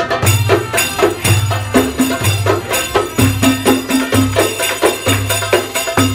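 Egyptian folk music for a tanoura dance: hand-held frame drums with jingles beating a fast, steady rhythm over a line of low, held bass notes.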